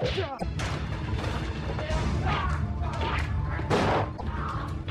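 Action-film soundtrack with fight sound effects: music with a steady low beat under several sudden crashes and hits.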